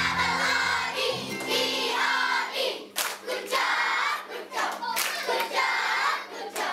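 A classroom of young children singing together in unison and clapping along, with sharp claps about once a second. A low background music track underneath fades out about a second in.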